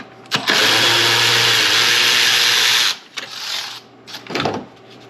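Power tool running steadily for about two and a half seconds, spinning out an 8mm bolt, then stopping. A couple of short clinks and rustles of the bolt and socket follow.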